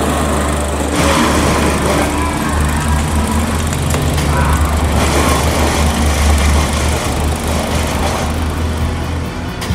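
Single-cylinder Tecumseh engine on a walk-behind lawn mower running steadily with a low drone, easing off slightly near the end.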